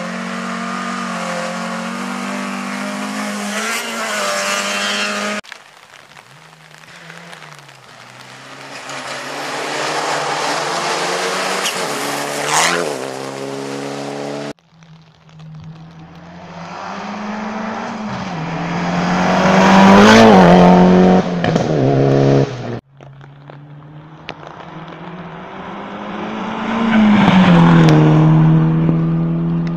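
Rally cars at full throttle on a gravel special stage, passing one at a time in four short shots that cut off abruptly between them. Each engine rises in pitch as the car nears and drops as it goes by, with the passes at about 13, 20 and 28 seconds.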